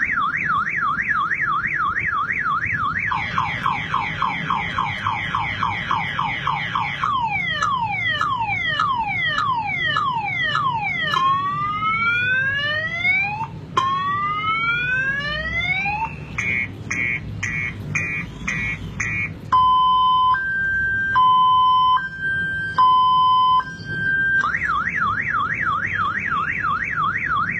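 Electronic car alarm siren cycling through its tone patterns. It starts with a fast warble, then repeated falling whoops, then slower rising sweeps and a run of quick beeps, then a slow high-low two-tone, and ends with the warble again.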